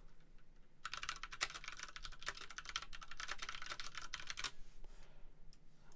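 Typing on a computer keyboard: a quick run of keystrokes begins about a second in and stops about four and a half seconds in, followed by a couple of single clicks near the end.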